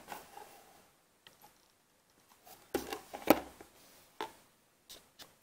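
A small cardboard toy box being handled and slid across a flat surface: scraping rustles with a sharp tap a little past the middle, then a few light knocks near the end.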